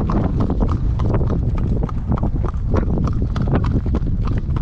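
A horse's hooves clip-clopping at an even pace on a paved street, about three to four hoofbeats a second, over a steady low rumble.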